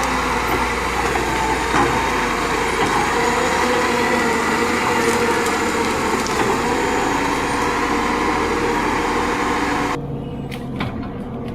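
Heavy machine engine running steadily under work, a dense mechanical noise. About ten seconds in it drops abruptly to a quieter, duller engine hum.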